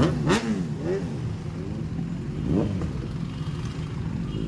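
Motorcycle engine revved in short throttle blips, twice in the first second and once more about two and a half seconds in, settling back to a low idle between them. A single sharp exhaust crack comes about a third of a second in, on the first blip.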